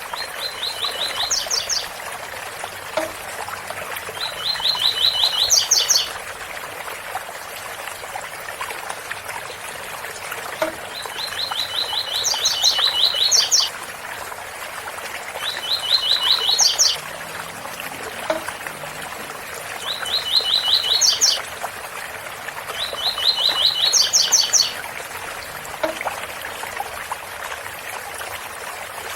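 Double-collared seedeater (coleiro) singing the 'tui-tui' song pattern. The song comes as six phrases a few seconds apart, each a quick run of even notes followed by a few higher notes. A steady waterfall sound runs beneath it.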